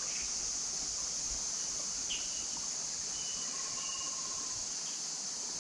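A steady, high-pitched insect chorus of crickets or cicadas, with a few short faint bird chirps and a thin held whistle-like note about halfway through, over the low rush of a flowing creek.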